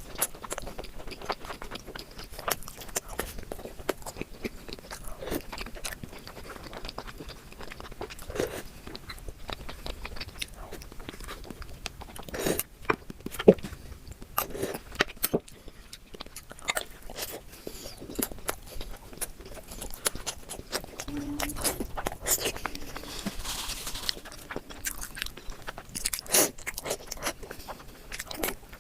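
Close-miked eating: a mouth biting and chewing food, with irregular wet clicks and smacks throughout.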